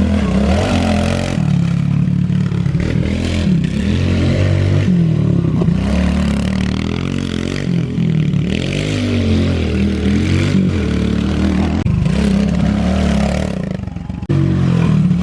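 Pit bike engine revving up and down as it is ridden, its note rising and falling with the throttle, with an abrupt break near the end.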